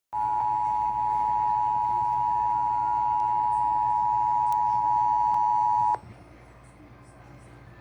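Emergency Alert System attention signal: a steady two-tone beep (853 and 960 Hz together) held for about six seconds, then cut off abruptly and leaving only a faint low hum.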